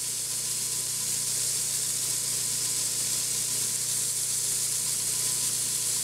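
2x72 Grizzly belt sander running, its abrasive belt sanding a pocket knife's celluloid handle and bolsters during hafting: a steady hiss over the low hum of the motor.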